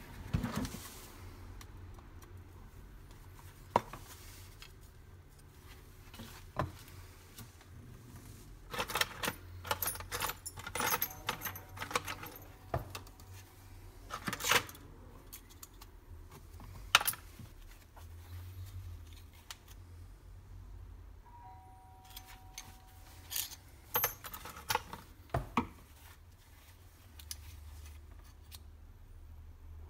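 Metal tools and parts being handled on a workbench: scattered clicks, clinks and knocks, with a flurry of them about nine seconds in and another around twenty-four seconds in.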